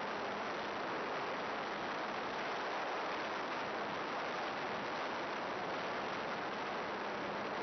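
Steady, even static hiss with a faint low hum underneath, unchanging in level and pitch.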